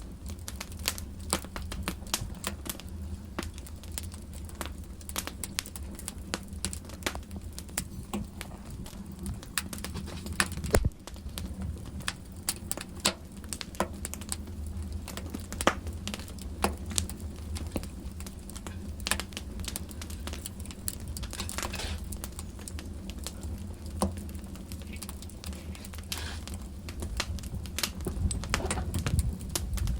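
Wood fire in a fireplace crackling, with irregular sharp pops of varying loudness over a low steady rumble.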